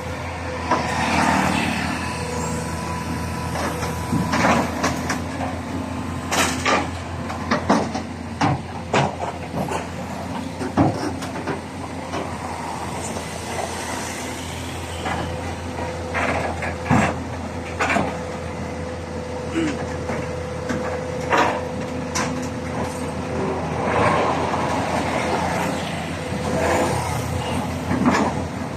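Truck engine running on the road with a steady low drone, heard from on board, with frequent rattles and knocks scattered throughout.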